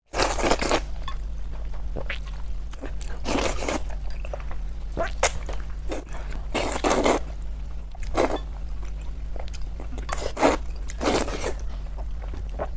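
Noodles being slurped into the mouth in a run of short, wet slurps, one every second or two, with chewing between them, over a steady low hum.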